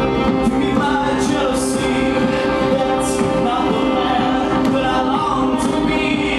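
Live band music: a violin and sustained backing notes with singing over them, played loud and steady through the hall's PA.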